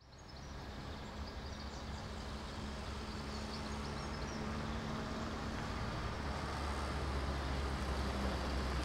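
Classic Mini estate car's small four-cylinder engine running as the car drives closer, its low steady hum growing gradually louder. Faint bird chirps come in over it during the first few seconds.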